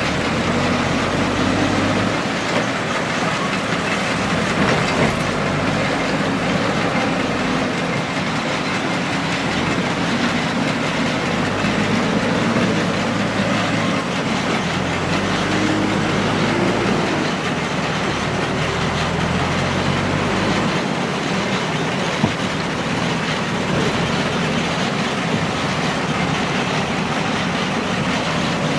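Diesel engine of a JCB 3DX backhoe loader running steadily under work, its low note stepping up and down a little now and then.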